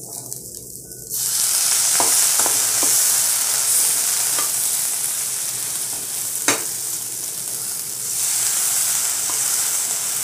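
Water poured into a hot pan of roasted semolina and vegetables sets off a loud, steady sizzle that starts suddenly about a second in. A spatula stirs and taps against the non-stick kadai a few times. This is the stage of upma-making where water is added bit by bit to the roasted semolina.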